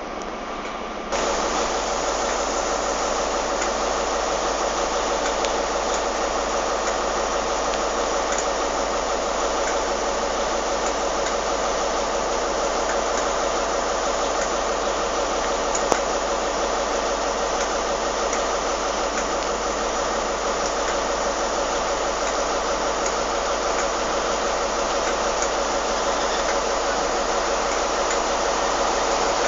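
Steady hiss of rain with a train's diesel engine running under it, getting louder suddenly about a second in.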